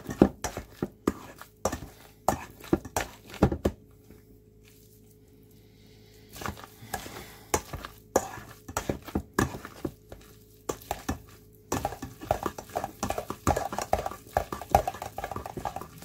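Potato masher knocking irregularly against a stainless steel bowl as boiled potatoes are mashed, with a pause of about two seconds about four seconds in and faster knocking near the end.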